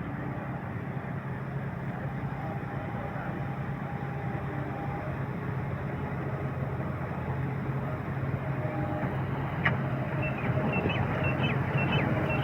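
A motor vehicle or machine engine running steadily, growing louder toward the end, with a single sharp click near the end and short high chirps in the last two seconds.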